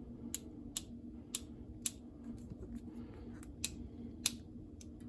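Ratcheting crimper with a hex die squeezing a coax connector's ferrule: a string of sharp, separate clicks, roughly one every half second, as the ratchet steps the handles closed. A faint steady hum runs underneath.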